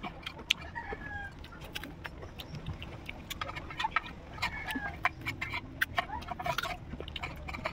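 Close-up eating sounds: wet mouth clicks and smacks while chewing ripe mango, with the plastic container handled now and then. Chickens cluck in the background, short falling calls heard several times.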